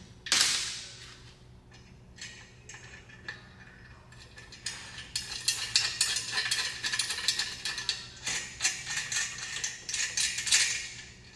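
A sharp metal clank just after the start. From about four seconds in comes a long run of quick, irregular metallic clicking and rattling as a bolt, washers and nut are fitted through steel tubing and the nut is threaded on by hand.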